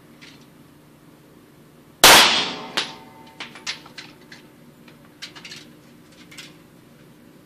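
A single shot from a Beretta pistol about two seconds in, loud and sharp, with a reverberant tail off the indoor range's concrete walls. Several lighter, sharp clicks and clinks follow over the next few seconds.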